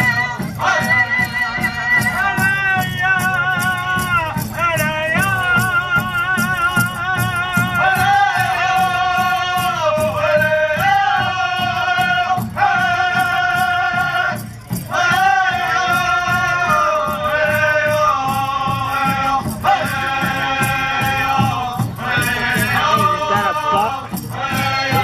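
Powwow drum group singing in high, held voices that step down in pitch, over a fast, steady beat on a large drum.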